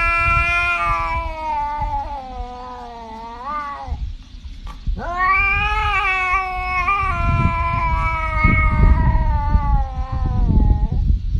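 A cat yowling in long, drawn-out wails: one call of about four seconds that rises at its end, then after a short break a second of about six seconds, with a low rumble underneath.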